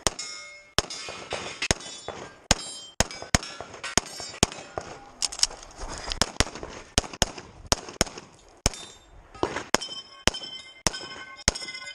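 CZ 75 Tactical Sport Orange pistol firing a fast, uneven string of about two dozen shots, many in quick pairs, as the shooter moves through a stage. From about two thirds of the way in, ringing metallic clangs follow some shots: steel targets being hit.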